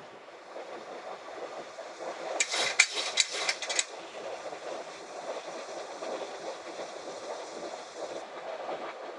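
Steady rush of air and equipment noise on the flight deck of a Boeing 737 MAX in flight. About two and a half seconds in there is a quick run of sharp clicks lasting about a second and a half.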